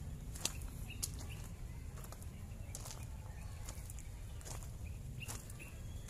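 Outdoor ambience: a steady low rumble with scattered sharp clicks and ticks, the strongest about half a second in.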